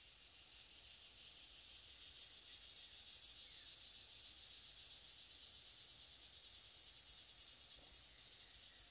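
Faint, steady insect chorus, a continuous high-pitched shrilling of crickets or similar insects.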